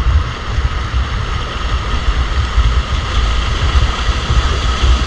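Wind buffeting the microphone with an uneven low rumble, over the steady noise of flowing stream water.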